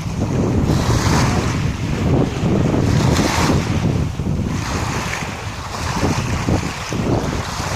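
Sea waves washing in, in repeated surges, with wind buffeting the microphone in a heavy low rumble.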